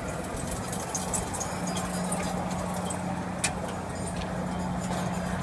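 Fairground din heard from up on a ride: a steady low machine hum under a wash of crowd and ride noise, with a few sharp clicks, the clearest about three and a half seconds in.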